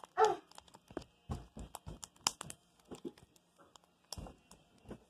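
Blue glue slime squeezed and kneaded between the fingers: irregular wet clicks, squelches and small pops, several each second.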